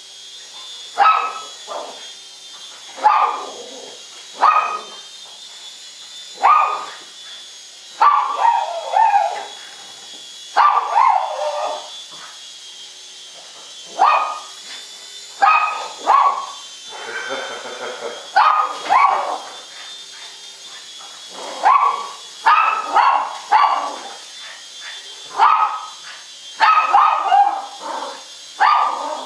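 Small dog barking excitedly at a toy RC helicopter, a sharp bark every second or two and sometimes quick runs of two or three, over the faint steady high whine of the helicopter's little electric motors.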